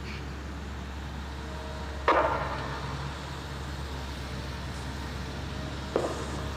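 Steady low rumble of an idling vehicle engine, with a sudden sharp knock about two seconds in and a smaller one near the end.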